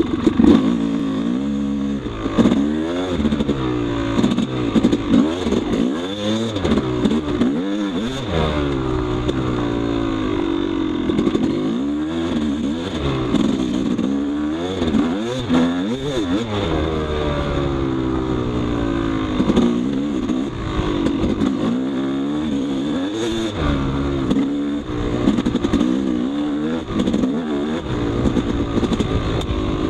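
Yamaha YZ250 two-stroke dirt bike engine being ridden hard on a trail, its pitch rising and falling every second or two as the throttle is worked and gears change, with some rattle and clatter from the bike.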